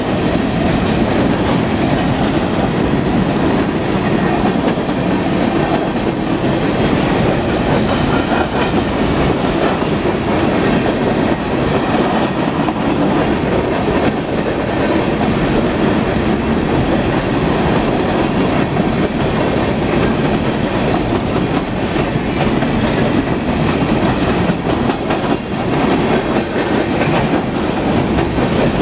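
Empty coal cars of a freight train rolling steadily past: a continuous rumble and rattle of the empty gondolas, with the clickety-clack of wheels over the rail.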